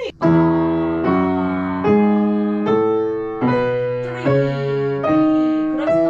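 Piano playing a slow, even run of chords, a new one struck about every 0.8 seconds, each ringing and fading before the next.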